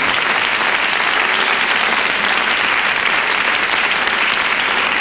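A theatre audience applauding, steady clapping from a large crowd.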